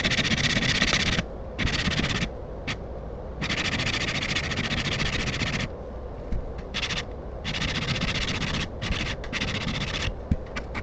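A steel blade being rubbed back and forth on a diamond sharpening plate with holes in it. It makes a run of about six gritty scraping strokes, some long and some short, with brief pauses between them.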